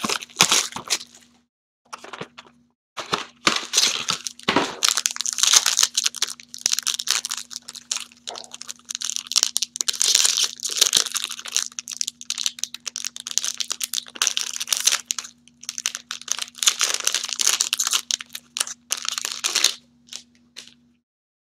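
Hands tearing open a foil trading-card pack and crinkling the foil wrapper, a dense crackle in irregular spells that stops shortly before the end.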